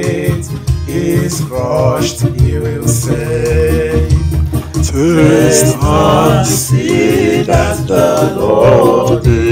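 A man singing a slow devotional melody with vibrato, accompanying himself on an electronic keyboard with sustained chords.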